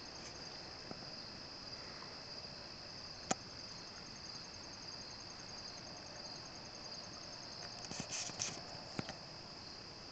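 Crickets chirping steadily in a faint, high, evenly pulsing chorus. A single sharp click comes about three seconds in, and a few brief clicks and rustles come near the end.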